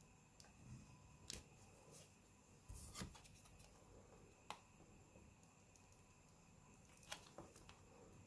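Mostly near silence, with a few faint clicks and scrapes of small plastic parts being handled: a phone and a plastic card turned over in the hands. The clearest clicks come about three and four and a half seconds in.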